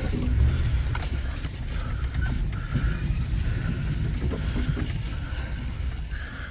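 Truck driving down a hill: a steady low engine and road rumble, with a few light clicks and rattles.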